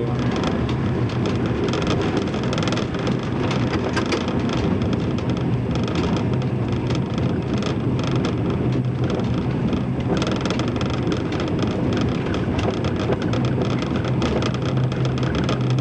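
Diesel railcar running along the track, heard from the driver's cab: a steady engine drone under a continuous rattle of wheels on rail, with irregular clicks and knocks.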